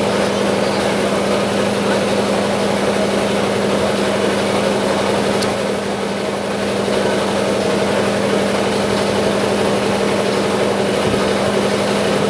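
A motor running steadily, giving a constant low hum.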